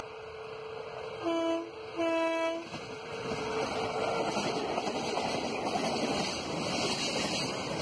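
Electric locomotive horn sounding two blasts, a short one and then a slightly longer one, about a second in, followed by the steady rushing rumble of a freight train of car-carrier wagons passing close by.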